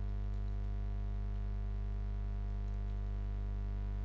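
Steady electrical mains hum, a low buzz with several overtones that holds unchanged throughout, with a few very faint ticks on top.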